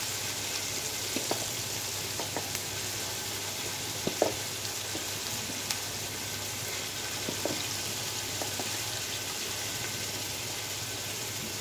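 Chopped onions sizzling in oil in a metal pot, a steady frying hiss, with a few faint clicks scattered through it as spoonfuls of spice powder go in.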